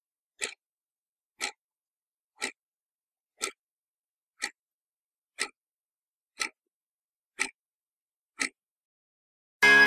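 Clock-like ticking sound effect: nine single sharp ticks, one each second, keeping time with a countdown of years. Music starts abruptly right at the end.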